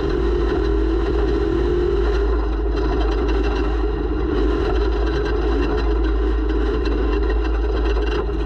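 Off-road race vehicle's engine running hard and steadily, picked up by a camera mounted on the vehicle, with a heavy rumble and constant small knocks and rattles over rough ground.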